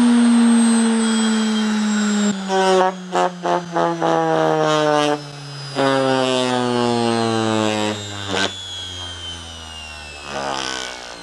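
Brushed (universal) washing-machine motor spinning fast under a trigger speed control, with a loud whine. The whine falls slowly in pitch as the motor slows, and is broken by several short cut-outs and clicks in the middle.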